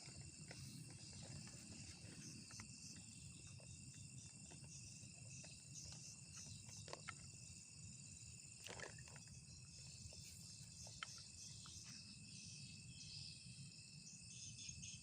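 Faint, steady high-pitched chorus of forest insects, with a few small clicks and ticks scattered through it.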